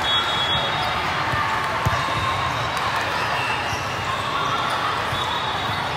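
Indoor volleyball play in a large hall: the ball being struck, with one sharp hit about two seconds in, over a steady murmur of crowd chatter.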